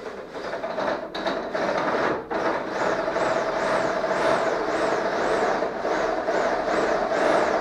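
Electric drill running with a long bit grinding against the metal baffles inside a motorcycle's stock exhaust silencer. A few knocks come as it bites, then a steady whine with a scraping that pulses about twice a second.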